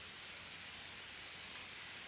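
Quiet outdoor ambience: a faint, steady hiss with no distinct sounds.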